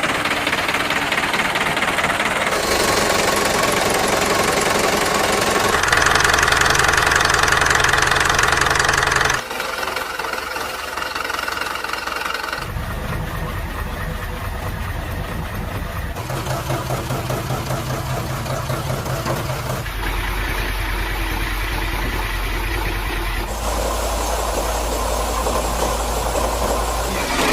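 Truck diesel engines of different power running one after another, a few seconds each, with abrupt switches between about eight different engines, each steady and at its own pitch.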